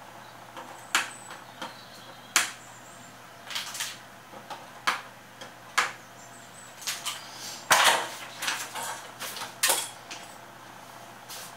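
Scattered sharp metallic clicks and clinks of small hand tools and electronic components being handled while fitting parts to a circuit board, irregular and a second or so apart, with a longer run of scraping clicks about eight seconds in.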